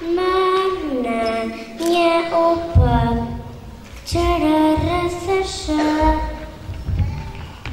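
A child singing into a handheld microphone, held notes in short phrases that step and glide between pitches, with a low thump about three seconds in.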